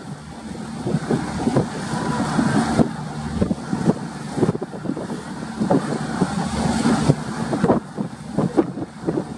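The ship KM Glory Mary's engines running with a steady low drone, while strong wind buffets the microphone in irregular gusts and thumps.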